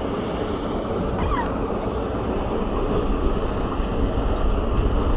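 Steady low wind rumble on the microphone, with a faint high ticking about twice a second from a spinning reel being cranked to bring in a hooked fish.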